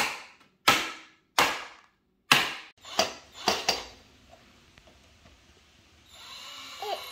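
A series of about seven sharp knocks on the furniture parts during assembly of the wooden dining table, each ringing out briefly, over the first four seconds. A steady whirring hum starts about six seconds in.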